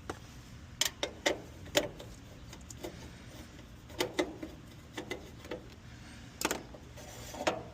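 Irregular sharp clicks and taps of hand tools and wire connectors being worked at the electrical terminals, about ten in all, with pauses between.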